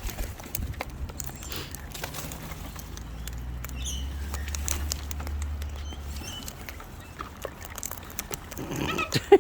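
Wild birds feeding at seed: many small pecking and scrabbling taps and clicks, with a few short high chirps. A low steady hum runs underneath through the middle and stops about six seconds in.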